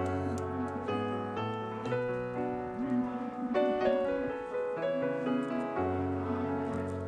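Background keyboard music: a sustained melody with chords whose notes change every half second or so.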